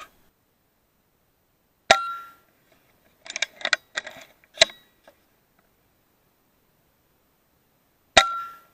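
Two shots from an FX Maverick .22 PCP air rifle, about six seconds apart, each a sharp crack with a short ringing tone after it. A run of small clicks and clatter falls between them.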